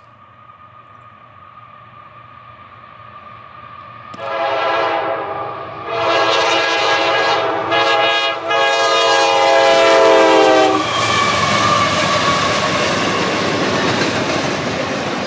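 CSX locomotive horn blowing the grade-crossing signal as the train approaches: long, long, short, long, the chord of several tones starting about four seconds in. The rumble of the train builds before the horn. Once the horn stops, the loud rush and clatter of the train passing close by take over.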